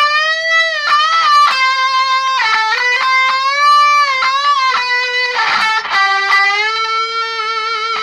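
Ibanez electric guitar strung with D'Addario EXL120BT Balanced Tension 9–40 strings playing a lead line: held single notes with string bends up and down, and vibrato near the end.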